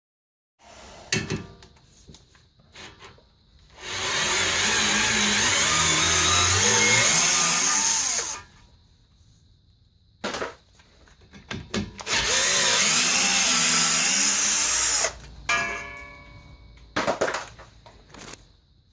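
Power drill running in two long bursts of about four and three seconds, its pitch wandering as the speed changes. Between the bursts come short knocks and clicks of metal parts being handled.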